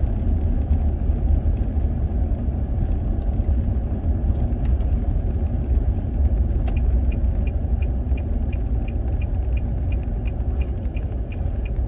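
Steady road and engine rumble heard from inside a moving car. From about seven seconds in, a light regular ticking runs over it at roughly two to three ticks a second.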